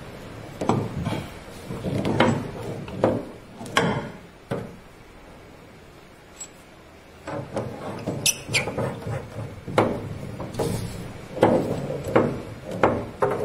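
Braided stainless hose nuts being screwed by hand onto metal shower fittings: a run of short clicks, taps and scrapes of metal parts being handled, quieter for a few seconds midway.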